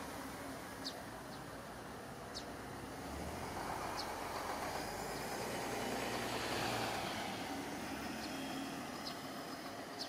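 A city bus passing close by: engine rumble and tyre rush build from about three seconds in, are loudest around six to seven seconds, then fade as it pulls away. Short high bird chirps sound several times over it.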